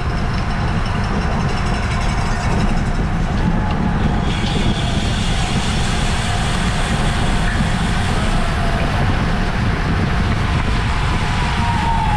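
Steady heavy wind rush buffeting the microphone of a camera on a bicycle racing at speed, a dense low rumble.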